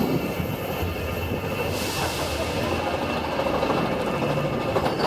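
Expedition Everest roller coaster train rolling along its track, a steady running noise that turns hissier about two seconds in.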